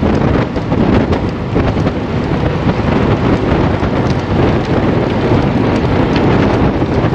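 Loud, steady rush of wind buffeting the microphone of a camera on a moving road bike, heaviest in the low range.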